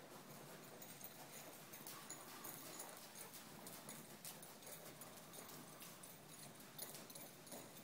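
Faint, soft hoofbeats of a ridden mule moving over the sand footing of an indoor arena, an irregular patter of light thuds.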